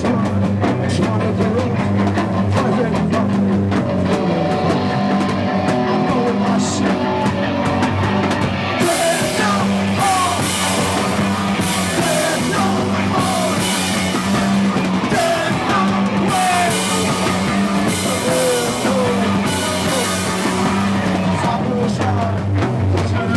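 A live rock band playing loud and steady, with a drum kit and guitar. From about nine seconds in the top end brightens in repeated stretches.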